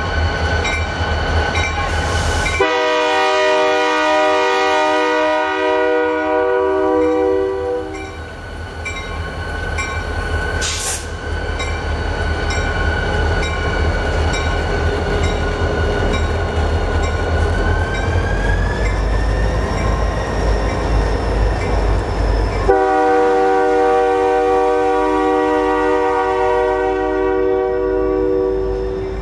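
Freight train pulled by diesel locomotives rolling past, the hopper cars rumbling, with a steady high squeal that rises in pitch past the middle. A multi-chime locomotive air horn blows for about five seconds a few seconds in, and again for the last six seconds.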